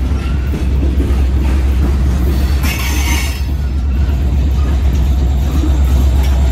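Empty coal hopper cars of a freight train rolling past close by: a steady heavy rumble of wheels on rail, with a brief hiss about three seconds in.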